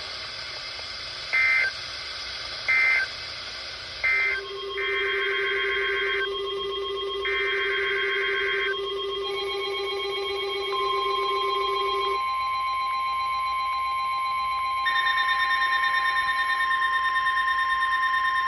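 Emergency Alert System signalling: three short buzzy data bursts, typical of the end-of-message code, then two longer data bursts. A long steady alert tone follows over several other steady tones, which start to pulse in the last few seconds.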